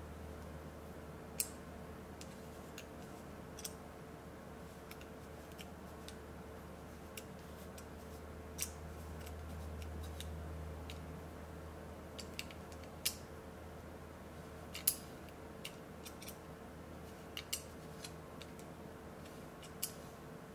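iGaging stainless steel digital caliper being handled: scattered sharp metallic clicks and ticks as the caliper is turned over and its jaw moved, over a steady low hum.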